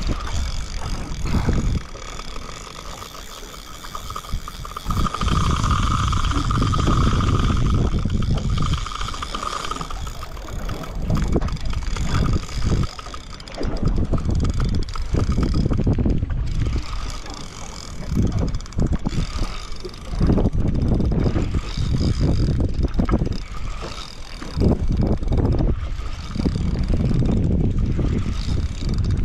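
Wind buffeting the camera microphone on a small fishing boat in stormy weather: a loud, uneven low rumble that surges and drops away every second or two.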